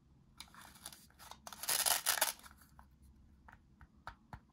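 The velcro-faced halves of a plastic toy cabbage scraping and pressing together: a rasping scratch that is loudest around the middle, then a few light plastic clicks near the end.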